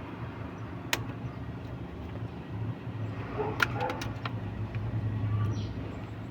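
Car engine idling with a steady low hum, with a sharp click about a second in and a quick run of clicks and taps at about three and a half to four seconds.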